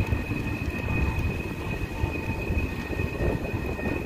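Freight train of steel coil cars rolling past, its wheels rumbling and knocking over the rails, with a steady high-pitched squeal held throughout.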